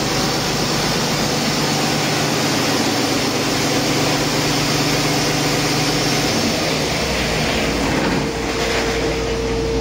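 Used 2016 Paccar MX13 inline-six diesel engine running steadily during a test run. A steady whine comes in near the end.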